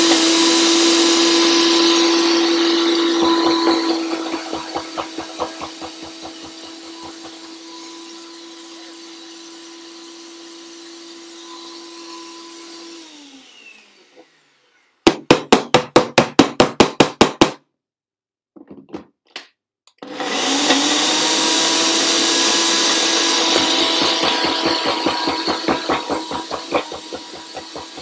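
Jug blender grinding a thick raw cashew hummus mixture: loud at first, then much quieter with a fast rattle, before it winds down and stops about halfway through. A quick run of about fifteen taps on top of the blender follows, to knock the thick mixture caught on the sides down into the blade. The blender then starts again and runs, the rattle coming back near the end.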